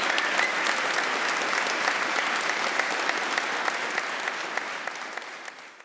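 Indoor crowd applauding: many hands clapping at once, thick and steady, fading out near the end.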